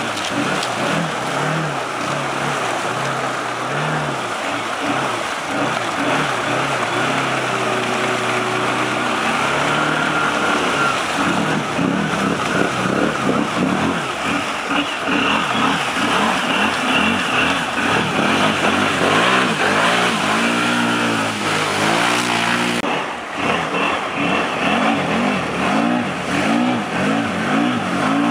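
Can-Am ATV's V-twin engine revving hard, its pitch climbing and dropping over and over as the throttle is blipped and held while the quad churns through mud. There is an abrupt change about 23 seconds in, where one clip cuts to the next.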